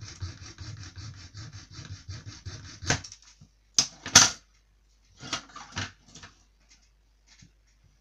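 Small hacksaw for metal cutting through the thin plastic tabs of a headlamp mount, with quick back-and-forth strokes about six a second that stop about three seconds in. Two sharp clicks follow about a second later, then light handling clatter.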